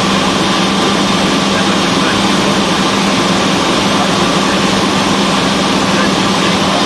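Cessna 172's piston engine and propeller droning steadily in flight, with an even hum and no change in power.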